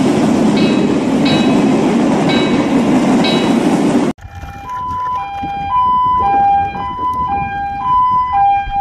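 A train runs with a dense, loud rumble and a faint repeating high ringing, then cuts off abruptly about four seconds in. After the cut, a two-tone siren alternates between a high and a low note roughly every half second.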